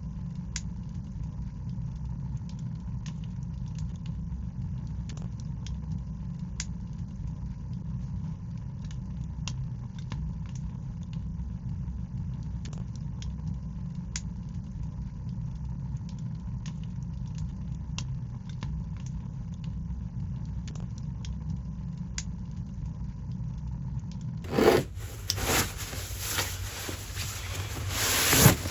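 Fire burning in a stove: a steady low rumble with scattered sharp crackles and pops. About four seconds before the end it cuts to a loud rushing noise with a few heavy bumps.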